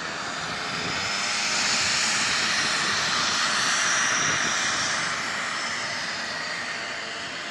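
Engine of a large radio-controlled scale warbird model with a spinning propeller, running on the runway. It grows louder over the first couple of seconds as the plane rolls past, then gradually fades.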